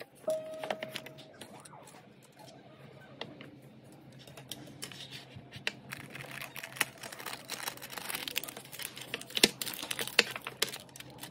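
Paper rustling and crinkling as a sleeve is slid off a tin cookie box and its paper lining is folded back, with small clicks and taps of the tin lid and box. The clicks come thicker in the second half, the sharpest near the end.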